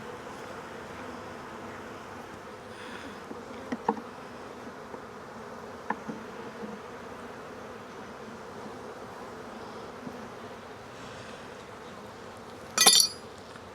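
Honeybees buzzing steadily in a dense, even hum, with a few faint clicks and one brief loud noise near the end.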